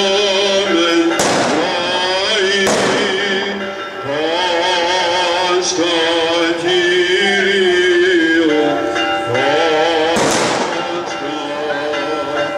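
Voices chanting an Orthodox Easter hymn in long held notes with a wavering vibrato. Three sharp firecracker bangs cut through it, two in the first three seconds and one about ten seconds in.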